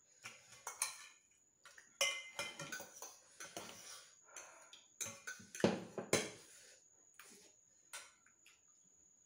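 A metal fork and spoon clinking and scraping against a stainless steel pot and ceramic bowls while noodles are served out, in irregular bunches of clinks that thin out over the last few seconds.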